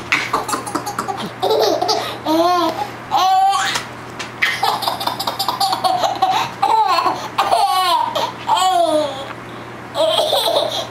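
A baby laughing in repeated bursts, high squealing laughs that slide up and down in pitch, about one every second.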